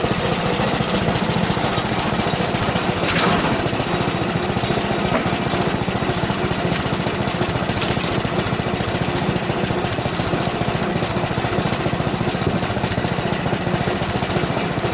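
Small gasoline engine of a Frontier OS23 portable bandsaw mill running steadily as the mill trims pine boards to length.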